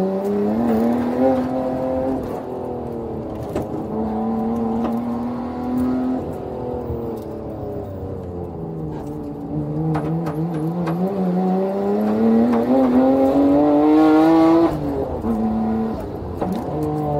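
Nissan RB26DETT twin-turbo straight-six of an R33 Skyline GT-R, heard loud from inside the cabin while driven hard on track. The engine pitch climbs under acceleration and falls away several times. The longest climb builds to the loudest point and cuts off sharply about 15 seconds in.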